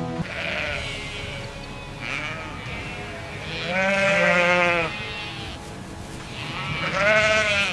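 Sheep bleating: fainter calls early on, then two long, quavering bleats about four and seven seconds in.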